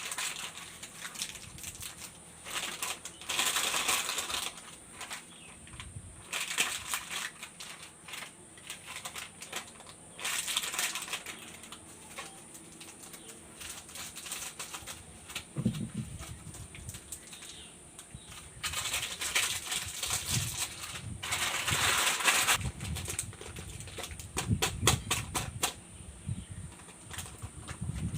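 Chocolate and candy wrappers being crinkled and torn open by hand: crisp crackling bursts a few seconds apart, with quieter rustling and a few soft knocks between.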